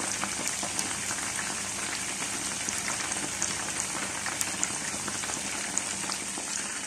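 Chicken pieces deep-frying in a pot of hot oil: a steady sizzle with scattered small pops and crackles.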